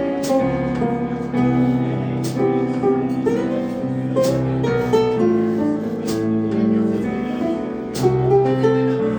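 Piano and guitar playing an instrumental break of a slow jazz ballad: sustained chords over a steady bass line, with no vocals.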